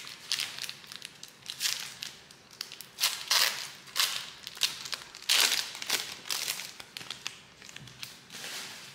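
Trading cards and their packaging being handled: irregular bursts of crinkling and rustling, the loudest about three and five and a half seconds in.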